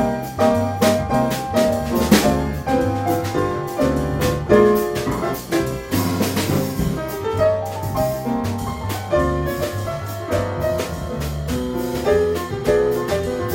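Jazz piano trio playing: piano with bass and a drum kit keeping time on cymbals.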